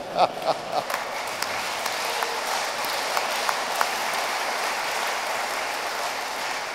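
Audience applauding, with a few bursts of laughter at the start; the applause dies away near the end.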